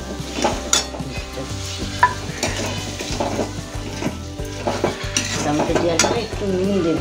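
A spatula scraping and knocking against a metal kadai as sliced tomatoes are stirred into frying onions and spices, with the oil sizzling. Irregular scrapes and clicks run over a steady sizzle.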